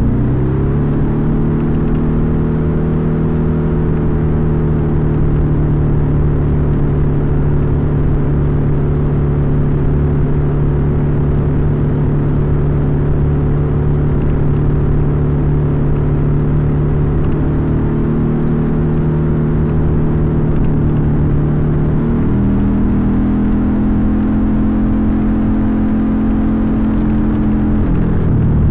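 Suzuki Skydrive 125 scooter's single-cylinder carburetted engine running at a steady road speed, heard close to its air-filter box. The box has been modified against the intake growl ('ngorok') that the owner blames on the filter box restricting the carburettor's intake. The engine pitch rises in the first second and holds steady, then climbs higher about 22 seconds in and drops back at the very end.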